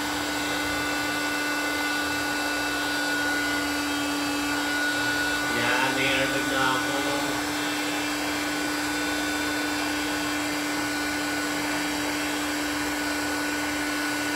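Small electric air pump running steadily with an even hum, blowing air into a double-size inflatable air bed as it fills.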